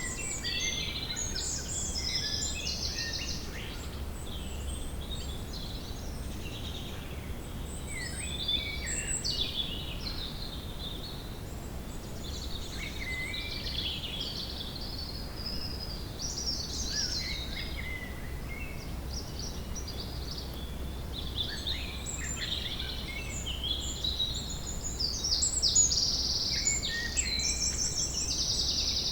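Woodland ambience: a chorus of several songbirds singing and calling at once, with chirps and fast trills overlapping throughout, over a steady low background rumble.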